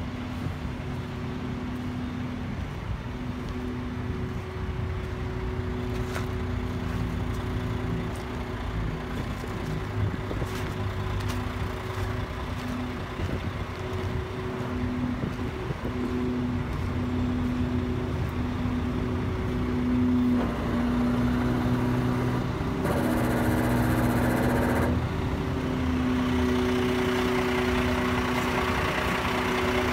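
Diesel engine of a 2003 International 7600 rollback truck idling with a steady droning hum. A hiss of about two seconds comes roughly three-quarters of the way through.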